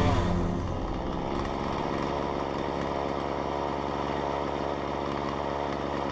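Husqvarna chainsaw's small two-stroke engine idling steadily, with no revving.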